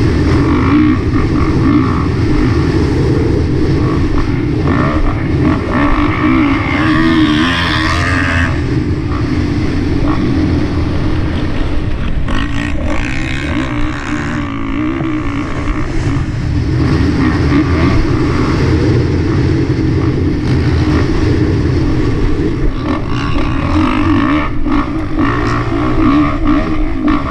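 A 450cc four-stroke motocross bike's engine, heard from on board while riding a dirt track. The engine rises and falls with the throttle and eases off briefly about halfway through.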